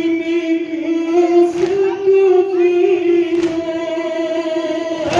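Mourners chanting a Shia noha lament for Imam Hussain in unison, one slow melody line of long held notes. A sharp beat sounds through it about every two seconds.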